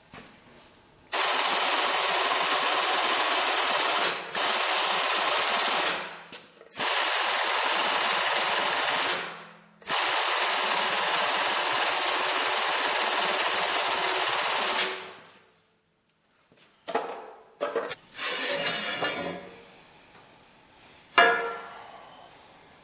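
A power tool working metal, running in four long, loud, steady stretches with short breaks between them, followed by a few short metal clanks near the end.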